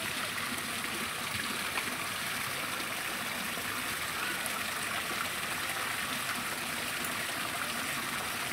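Running water: a steady, even rush.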